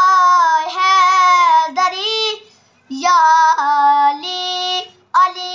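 A boy singing an Urdu qaseeda alone, unaccompanied, in long held notes that bend gently, with one short breath pause about halfway through.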